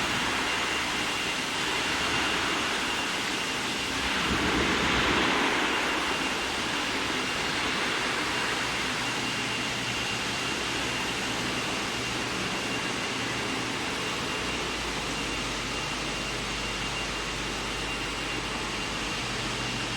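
Steady hiss and hum of machinery on a steel wire hot-dip galvanizing line, with a faint high whine held throughout. The noise swells briefly about five seconds in.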